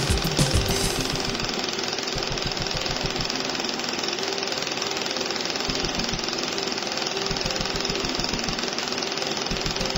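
Stationary pulsed laser welder firing a fast, even train of pulses, heard as rapid tapping over a steady machine hum, while it welds a seam on a part turning on its rotary axis.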